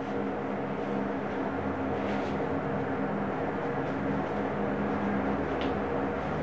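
Steady low mechanical hum with a hiss, with a few faint, soft rustles.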